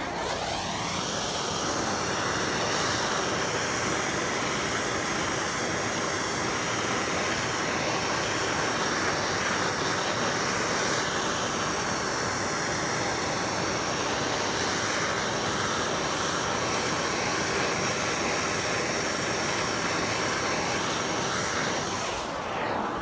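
Handheld gas torch burning, its flame giving a loud, steady hiss that dips slightly near the end.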